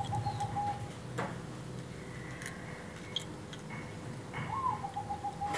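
Light metallic clicks and ticks from a brass mainspring barrel being handled with pliers, one sharper click about a second in. A short call that rises and then pulses on one pitch is heard about four seconds in.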